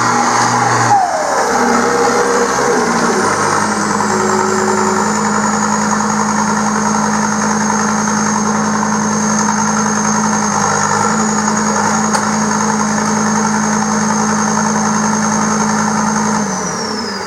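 John Deere tracked skid steer's diesel engine running steadily with a high whine. The pitch drops about a second in, and the engine winds down near the end.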